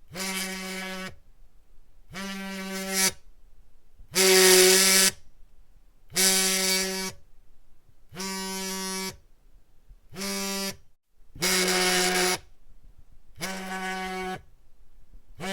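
Cell phone vibrating: repeated buzzes of about a second each, roughly every two seconds, each a steady low buzz. Some buzzes are louder and brighter than others.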